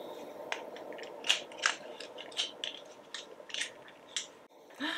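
Cardboard concealer box being opened by hand: an irregular string of crisp clicks, crinkles and crackles from the packaging, cutting off abruptly near the end.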